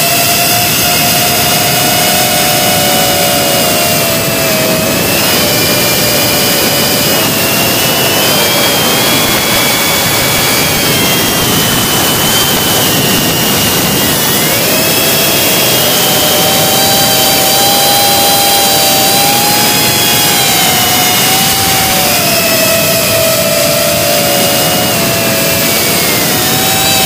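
GEPRC CinePro 4K FPV quadcopter's brushless motors and propellers whining steadily over a hiss of rushing air. Several pitches drift and glide up and down together as the throttle changes.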